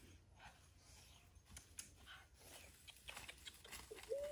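Faint irregular crackling of bare footsteps on dry leaf litter and twigs. Near the end a single clear whistled note begins and holds steady.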